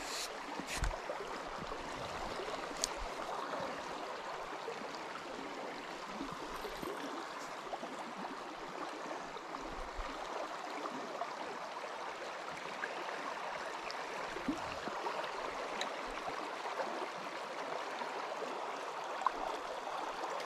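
Shallow river water flowing over riffles: a steady, even rush, with a few faint clicks in the first few seconds.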